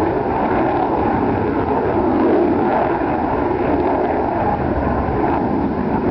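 Steady, loud jet noise from a General Dynamics F-111's two Pratt & Whitney TF30 turbofans, running in afterburner during a dump-and-burn, the dumped fuel burning as a long flame behind the aircraft.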